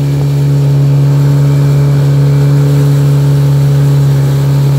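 Motorboat engine running steadily, a constant low drone that holds one pitch throughout.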